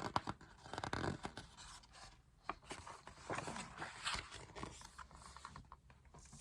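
Paper rustling and scraping with small clicks: the pages of a picture book being handled and turned.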